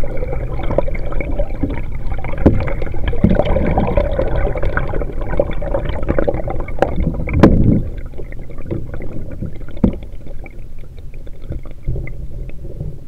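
Muffled sloshing and gurgling of water heard through a camera held underwater, a dense low rumble with a few sharp knocks, the loudest about seven and a half seconds in. It grows quieter over the last few seconds.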